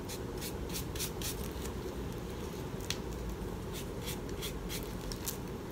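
Paintbrush bristles stroking paint onto a wooden letter: a series of faint, short, irregular brush strokes, more frequent near the start and again toward the end.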